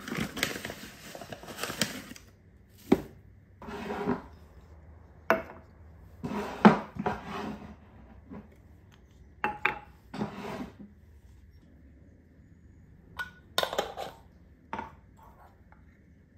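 Kitchen handling sounds as breakfast is put together: a rustling pour of dry oats from a packet into a ceramic bowl over the first two seconds, then a series of separate knocks and clinks as glass jars and their lids are picked up and set down on the counter.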